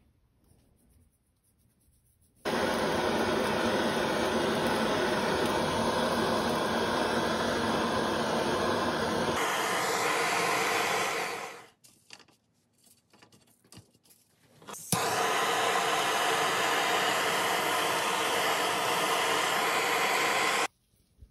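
Handheld butane kitchen torch blowing its flame in a steady hiss as it sears pufferfish fillets. There are two long blasts of about nine and six seconds with a quiet gap between them, and the second begins with a sharp click.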